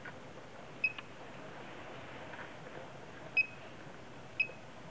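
Hitec Aurora 9 radio transmitter giving short, high single beeps as its touchscreen and keys are pressed: three beeps, one about a second in and two near the end, with a small click just after the first.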